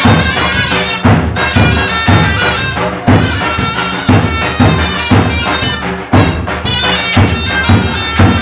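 Zurna (double-reed shawm) playing a loud, reedy folk melody over repeated davul bass-drum strikes.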